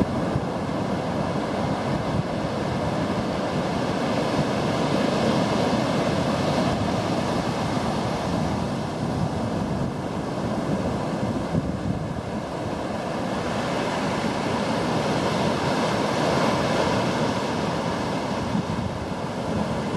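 Steady wind and sea noise aboard a sailboat under way: wind buffeting the microphone over water washing past the boat.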